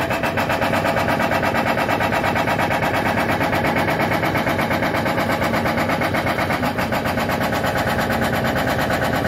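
Excavator-mounted hydraulic rock hammer (breaker) pounding rock in a rapid, steady rhythm of blows, with the excavator's diesel engine running underneath.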